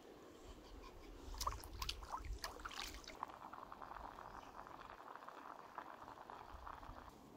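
Pot of liquid boiling hard over a wood campfire: a dense, even bubbling that cuts off suddenly near the end. Before it, about a second in, come a few sharp clicks and knocks.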